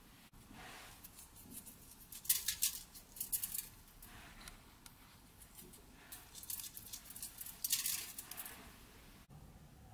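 Dried green seasoning sprinkled from the fingers onto fish on foil, the grains pattering in two bouts of soft, crackly hiss, the second starting about six seconds in.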